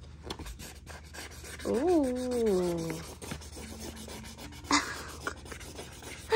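A felt-tip marker scribbling on a coloring-book page: quick, scratchy back-and-forth strokes. About two seconds in, a voice makes one drawn-out sound that falls in pitch, and a sharp tap comes about three-quarters of the way through.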